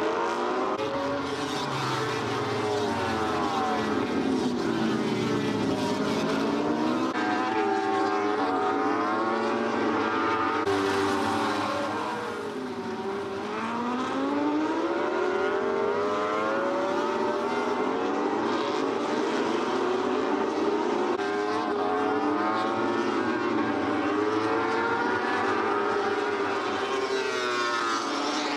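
Several World Superbike racing motorcycles at racing speed, their engines revving hard, pitch climbing through the gears and dropping on downshifts, overlapping one another. The sound switches abruptly a couple of times.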